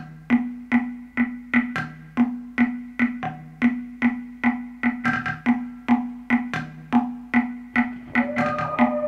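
Music: a steady, repeating pattern of short pitched percussive strikes, about two and a half a second. Near the end, a held tone enters and slowly slides down in pitch.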